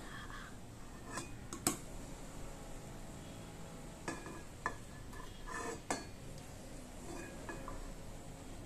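Metal serving spoon scooping rice out of an enamelled pot into a metal serving bowl: a few sharp clinks of metal on metal, the loudest a little under two seconds in, between soft scraping and rustling of the rice.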